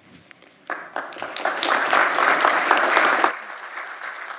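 Lecture-theatre audience applauding. The clapping starts about a second in and drops off sharply past the three-second mark to a thinner patter.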